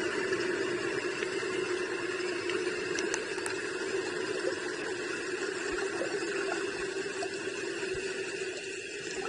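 A steady mechanical hum, unchanging in level.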